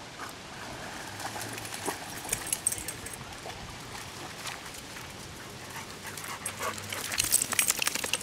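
Labrador retriever swimming and wading ashore with a stick in its mouth, water splashing around it. A quick run of rattling clicks and scuffles near the end is the loudest part.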